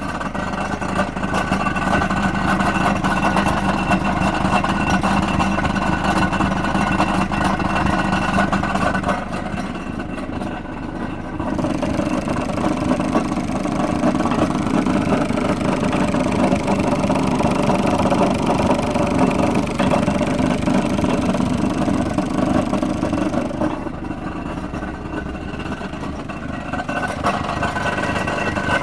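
Smart fortwo 451 engine running with a rattle (klappern), steady but turning quieter and duller twice, about a third of the way in and again near the end.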